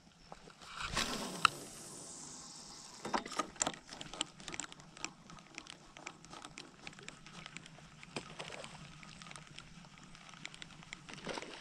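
A fishing cast about a second in: a quick swish and hiss of line ending in a sharp click. Then a fishing reel is cranked and the rod twitched, with many irregular clicks and ticks, as a Sammy topwater lure is worked back.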